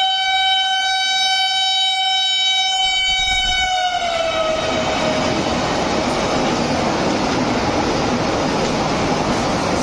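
Vande Bharat Express train sounding a long single-note horn for about the first five seconds, its pitch dropping as the front passes, then the steady rush of its coaches going by at speed.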